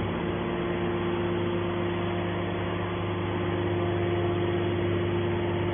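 Hydraulic scrap metal baler running, its motor and pump giving a steady, unbroken hum.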